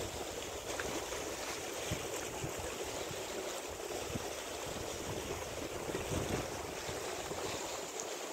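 Choppy sea water washing in a steady rush, with wind buffeting the microphone in low, uneven rumbles.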